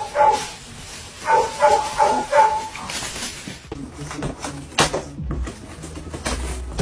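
A pet animal calling in a quick run of four short, pitched notes, followed later by a sharp knock.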